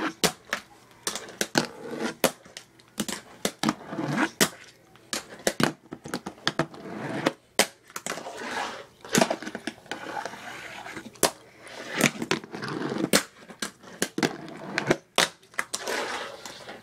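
Tech Deck fingerboard being ridden: its small wheels roll on a hard surface, broken by frequent sharp clacks as the board is popped and lands.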